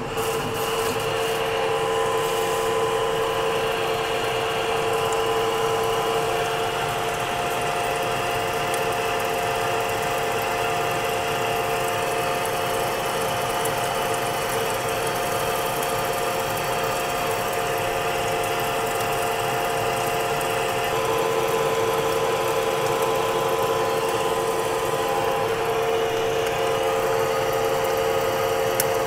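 Large manual metal lathe taking a heavy half-inch-deep roughing cut on a 10-inch bar of 1045 steel with a carbide insert. It runs as a steady machine whine, with several held tones over the even hiss of the cut.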